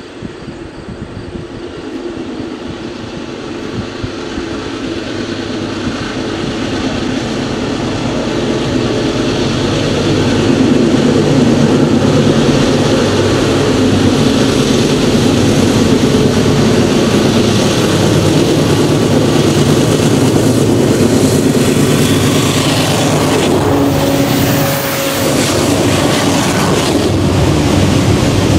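Diesel locomotives of a double-stack container train approaching out of a tunnel and passing, with a steady engine hum. It grows louder over the first ten seconds, then holds as the container cars roll by.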